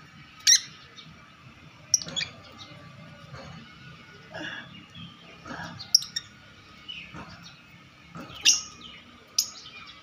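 Pet lovebird giving short, sharp, high-pitched chirps and shrieks, about half a dozen times, with softer calls between them.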